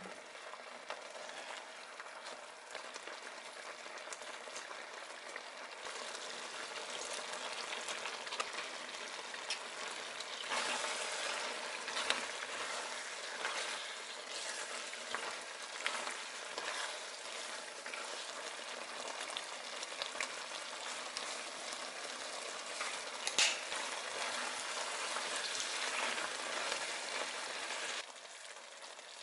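Creamy rosé tteokbokki sauce bubbling and sizzling in a nonstick frying pan, with a wooden spatula stirring through the rice cakes and noodles and scraping the pan in sharp clicks now and then.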